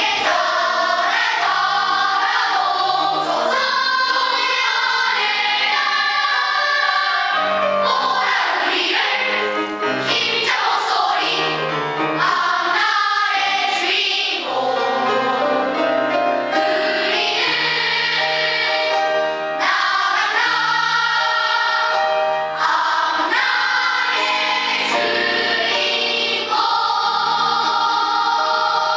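Children's choir of boys and girls singing together under a conductor, continuous throughout.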